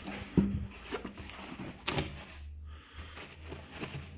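Unpacking noises from a cardboard box lined with polystyrene: scattered knocks and clicks with rustling of cardboard flaps and plastic-wrapped papers being handled, the loudest knocks about half a second in and again about two seconds in.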